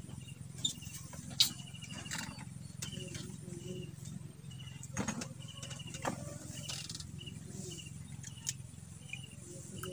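Outdoor ambience over a low steady hum: a small animal repeats a short, rapid chirring call again and again, with a few sharp clicks, the loudest about a second and a half in.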